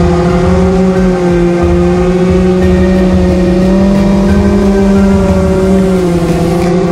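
FPV quadcopter's brushless motors and propellers whining at a steady pitch that wavers slightly with the throttle, heard from the drone's onboard camera.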